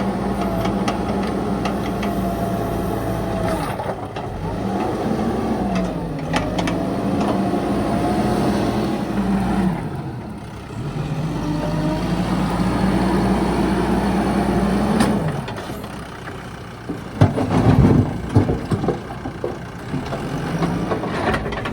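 Mahindra backhoe loader's diesel engine running, its revs dipping and rising again a few times. A burst of loud, irregular knocks comes near the end.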